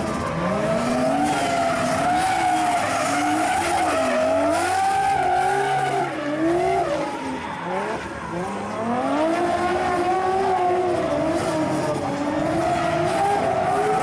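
Nissan 200SX drift car's engine revving up and down repeatedly through a drift, with its tyres skidding and squealing; the revs dip briefly about four and eight seconds in.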